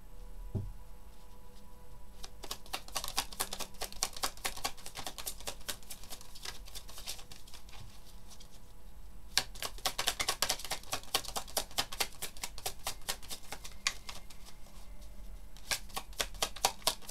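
A tarot deck being shuffled by hand: fast runs of card-on-card clicks and slaps, in three stretches with short pauses between.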